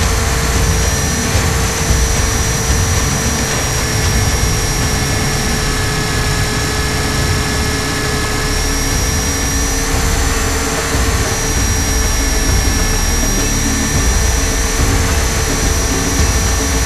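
Electric RC helicopter (Align T-Rex 500) in flight, heard from on board: its motor and rotors run steadily with a low rumble and a high whine that steps slightly up and down a few times.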